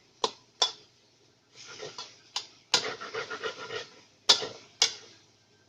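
Spatula clanking and scraping in a wok while stir-frying noodles: about six sharp knocks of the utensil against the pan, with stretches of scraping between them.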